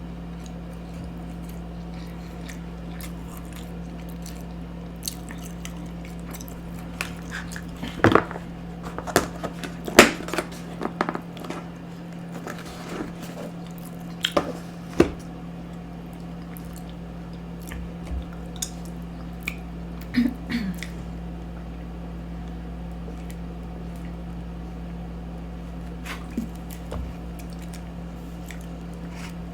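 A person eating: chewing and wet mouth smacks, with scattered sharp clicks clustered in the middle and again later, over a steady low hum.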